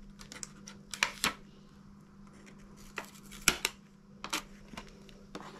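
Scattered light clicks and taps from handling metal bookmarks fresh out of a heat press, as the sublimation paper and tape are taken off them.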